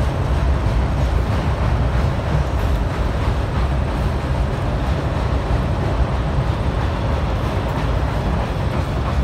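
Freight train rolling by at close range: a loud, steady rumble of wheels on rail.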